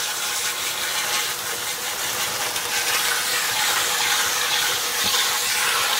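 Kitchen faucet running steadily as a pan is rinsed under it.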